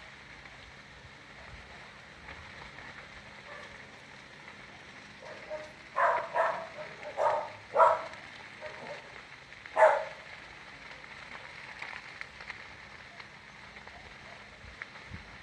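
A dog barking, a quick run of about five barks near the middle, over a steady hiss.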